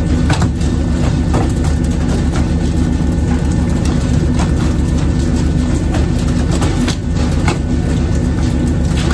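A fishing boat's engine runs steadily with a low drone, while a few scattered thuds and slaps come as skipjack tuna, jerked out of the sea on poles, land on the wooden deck.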